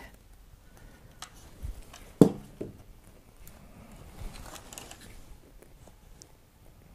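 Handling noises from metal mining-frame parts being worked apart by hand: scattered small clicks and scrapes, with one sharp knock about two seconds in.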